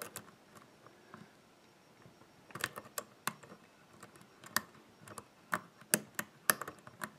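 Steel hook pick clicking against the pin tumblers inside a CES euro cylinder as the pins are lifted and set under tension. Sharp, irregular clicks start about two and a half seconds in, after a quieter first stretch.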